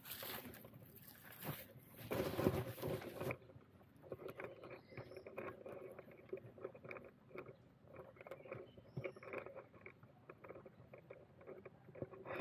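Rustling and handling noises. A loud rustling burst comes in the first few seconds, then a long run of small clicks and scrapes.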